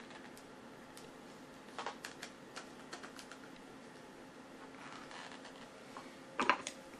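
Scattered small clicks and light knocks of a camera being handled and turned onto the bolt of a wooden mount, with a louder clatter about six and a half seconds in. A faint steady hum sits underneath.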